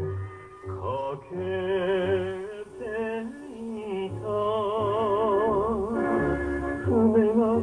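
An old reel-to-reel tape playing at 9 cm/s through the small built-in speaker of an Elfa tape recorder: music with a long-held, wavering melody line with strong vibrato over steady bass notes.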